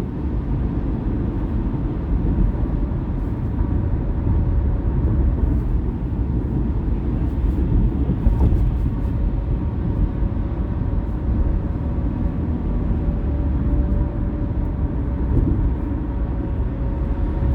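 Steady road and engine rumble of a car driving along a highway ramp, heard from inside the car.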